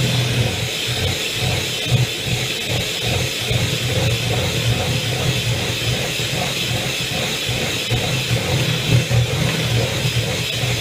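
Electric hand mixer running steadily, its beaters working through cake batter in a bowl, with a low fluttering hum.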